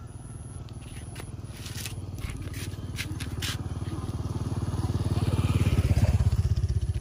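A small motorbike's engine running as it rides up and passes close by, growing steadily louder to a peak about six seconds in, then starting to fade. A few light scrapes sound close to the microphone in the first half.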